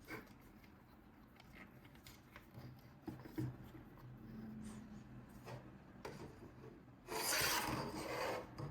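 Hands handling toy packaging: scattered light taps and clicks, then a loud scraping rub lasting about a second near the end.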